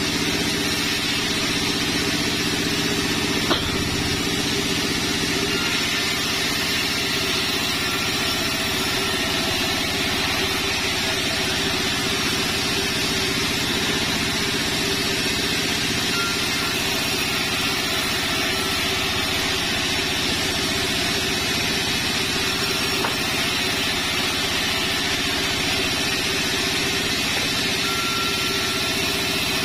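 Sawmill log bandsaw and its drive running steadily while ripping sengon logs into slabs, with one sharp click about three and a half seconds in.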